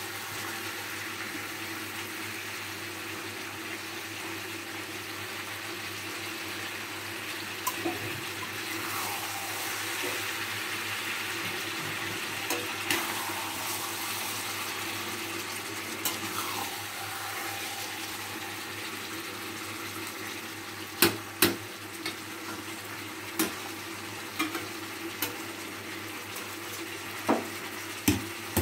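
Chicken curry with water just added, bubbling and hissing steadily in a hot pan on a gas stove, with a few sharp clinks of a metal ladle against the pan in the last third.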